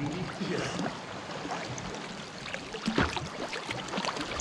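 Sea water lapping and splashing against a camera held at the surface by a swimmer, with many small irregular splashes and one louder splash about three seconds in.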